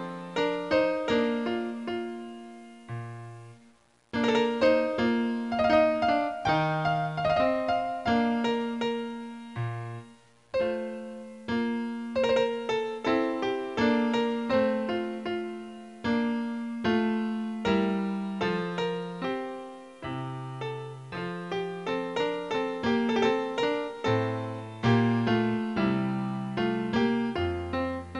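Background piano music: a steady run of struck notes over a slow bass line, breaking off briefly twice, about four and ten seconds in.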